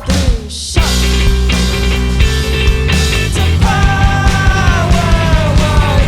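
Live rock band playing. After a hit at the start, the full band with drums comes in about a second in, and a voice starts singing a little past halfway.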